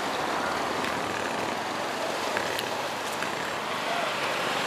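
Steady rushing of a flooded river, its fast, swollen muddy water making an even, unbroken noise.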